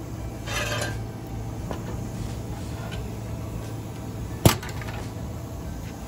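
Pocket bike tire being inflated: a short hiss of air about half a second in as the air chuck is worked on the tire valve, over a steady low hum. A single sharp click about four and a half seconds in is the loudest sound.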